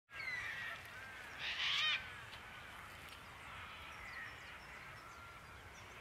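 Early-morning birdsong, several birds calling at once with short rising and falling chirps. One louder burst of quick repeated notes comes about a second and a half in.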